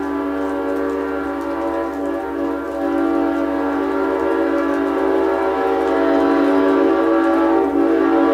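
Nathan M5 five-chime train air horn sounding one long, unbroken chord, held steady and getting a little louder about three seconds in.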